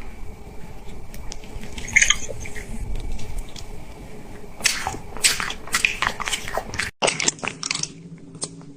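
Crunchy chewing and biting: wet, crisp munching, quieter at first. From about halfway in it turns into a quick run of crunches, broken by a brief sudden dropout and then picking up again.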